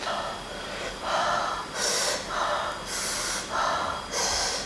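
A man breathing hard against the burn of hot chili sauce: three rounds of sharp hissing breaths through the teeth, alternating with breathy puffs.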